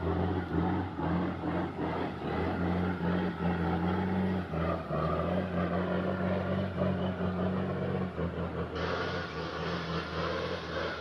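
Heavily loaded timber truck's diesel engine running under load at a fairly steady low pitch, with rattles and knocks throughout. The sound changes abruptly about nine seconds in, as if cut to another clip.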